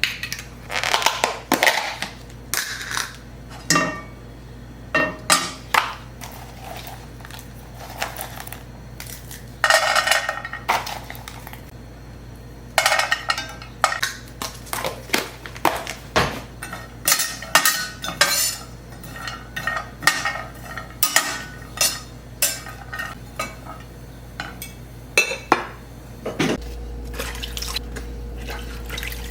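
Dishes, pots and metal cutlery clinking and clattering during kitchen prep: irregular sharp knocks, each with a short ring. Near the end the knocks stop and a steady low hum starts.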